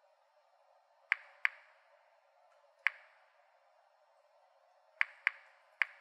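Geiger counter on a Series 900 Mini-Monitor clicking at random. There are six sharp clicks at irregular intervals: two close together about a second in, one near three seconds, and three in quick succession near the end. Each click is one detected particle of ionising radiation, a low count from the weak natural radioactivity of a large pile of bananas.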